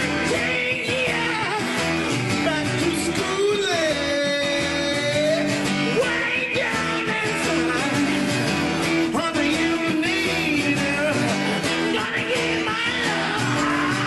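A rock song with a singing voice over guitar and a steady beat.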